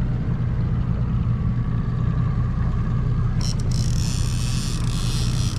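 A 9.9 hp kicker outboard motor running steadily at low trolling speed, a constant low hum. About three and a half seconds in, a high hiss joins it.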